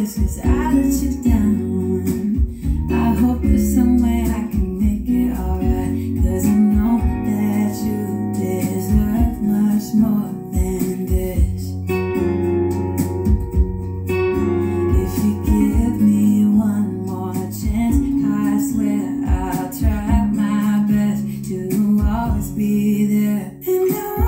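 A background song with strummed acoustic guitar and a singing voice.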